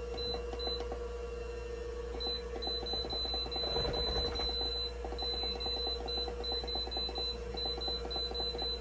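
Electric pressure cooker's control panel beeping with each button press as the cooking time is set to 30 minutes on high: two short high beeps, then from about two seconds in a long run of them, about three a second.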